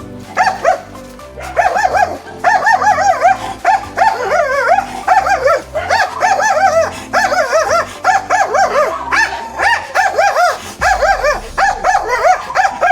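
A dog barking repeatedly in quick, yelping barks over background music. The barks start about half a second in, pause briefly, then run on steadily.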